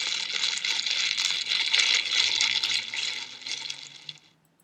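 Sound effect of a fire burning: a dense hiss of small crackles and pops that fades away near the end.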